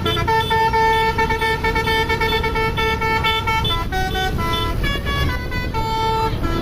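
Bus 'telolet basuri' multi-tone horn playing a quick melody of short notes, with a longer held note near the start and another near the end, over a low engine rumble.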